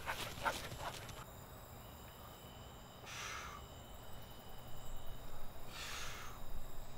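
Quick footsteps on grass in the first second, then a man's forceful breaths, one about three seconds in and another near the end, as he pulls up on a bar.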